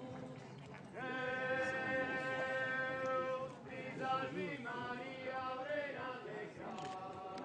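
A group of voices singing a chant-like hymn, holding one long note for about two and a half seconds, then moving through shorter rising and falling phrases.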